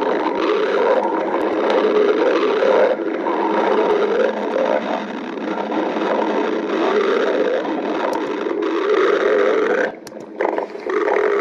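Human stomach growling: a long, continuous rumbling growl that drops away briefly about ten seconds in, then starts again.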